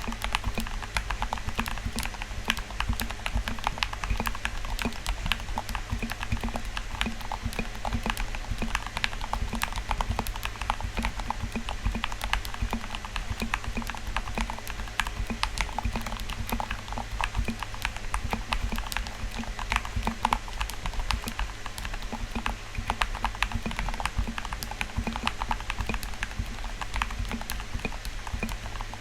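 Fast typing on a mechanical keyboard with Gateron Yellow linear switches and PBT OEM-profile keycaps, a quick, uneven stream of keystroke clacks. A steady low hum runs underneath.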